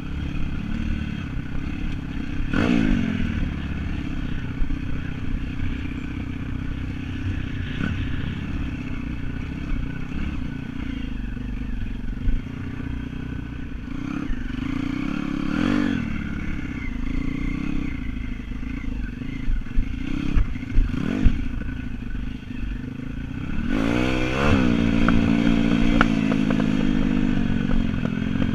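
A pit bike's YX single-cylinder four-stroke engine running under way off-road, its pitch rising and falling with the throttle: short revs a few seconds in, about halfway through and a little later, and a longer rev-up near the end. A few sharp knocks come around two-thirds of the way through as the bike goes over rough ground.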